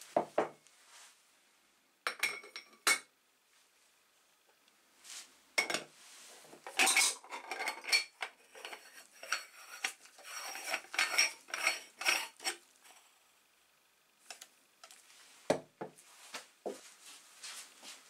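Aluminium moka pot parts clinking against each other during reassembly, a few separate clinks at first. Then a run of scraping and rattling metal as the upper chamber is screwed onto the base, and a few knocks near the end.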